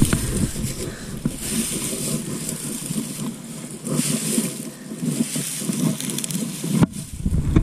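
A person wading through a shallow river: water sloshing and splashing around the legs, with a louder splash at each step.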